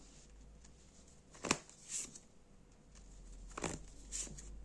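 Tarot cards being handled and drawn: a few short, soft card swishes and taps.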